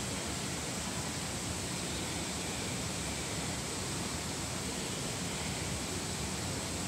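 Steady, even hiss-like background noise of an empty station platform, with no distinct events.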